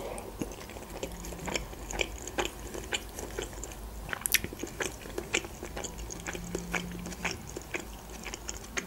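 Close-miked chewing of a khinkali dumpling: soft, wet mouth clicks and smacks at irregular intervals.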